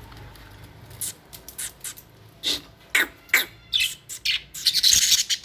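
Budgerigars chirping: short, sharp calls starting about a second in, coming thicker toward the end into a dense burst of chatter.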